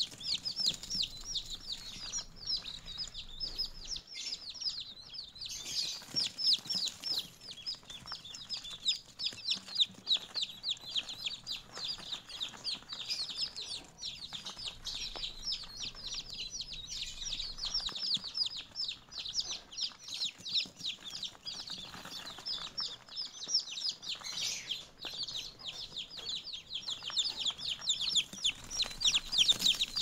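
Baby chicks and ducklings peeping continuously, many short, high, falling peeps overlapping one another.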